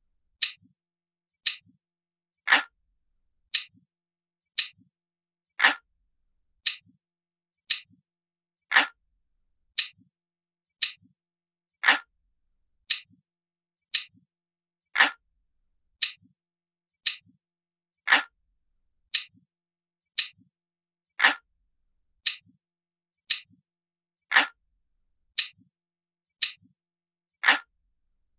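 Glass-like clock ticking from a countdown timer, one crisp, high tick about every second. Every third tick is louder and fuller.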